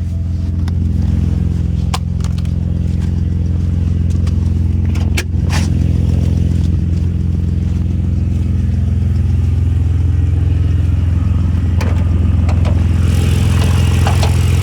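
BMW E90 3 Series' freshly swapped inline-six engine idling steadily, with scattered light clicks and ticks over the idle.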